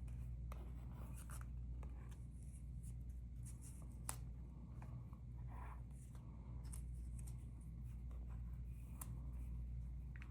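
Faint rustling and light ticks of stamp sheets and paper being handled, over a steady low hum.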